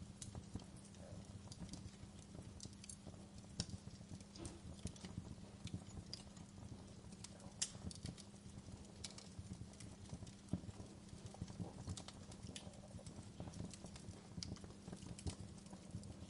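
Fireplace fire crackling faintly, irregular pops and snaps over a steady low rumble.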